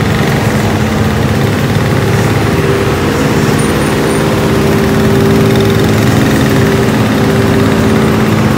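Diesel engine of a road-paving machine running steadily just ahead, a loud, even drone, with motorcycle engines idling around it.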